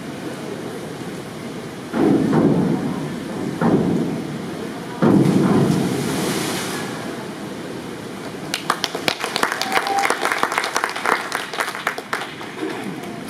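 Springboard diving: the board bangs twice as the diver takes off, and about five seconds in she enters the water with a splash. From about eight and a half seconds, scattered clapping from onlookers.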